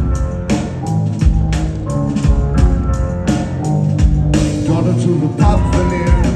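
Rock band playing live in a concert hall: drum kit beating a steady rhythm under bass and guitar, in the instrumental opening of the song.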